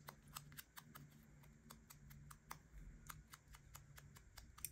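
Faint, quick light taps, several a second and unevenly spaced, of an ink pad being dabbed along the edges of a small paper label. A faint steady low hum lies underneath.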